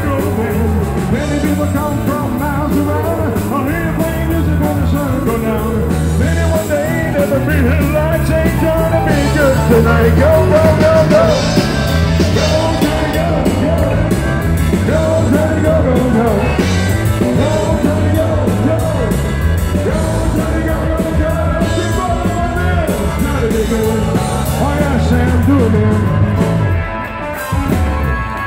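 Live rock band playing: a man singing lead over electric guitar, bass guitar and drums.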